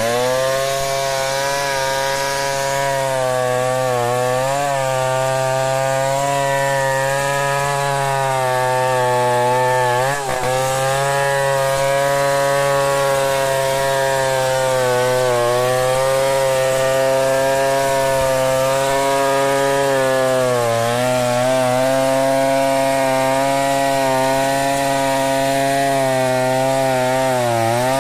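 Stihl 070 two-stroke chainsaw running at full throttle, ripping a log lengthwise. Its pitch dips briefly about every five to six seconds as the chain loads up in the cut.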